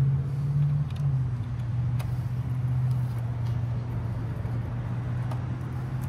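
A steady low motor hum that drops slightly in pitch about a second in, with a couple of light clicks as a plastic nipple fitting is screwed onto a pond pump's outlet by hand.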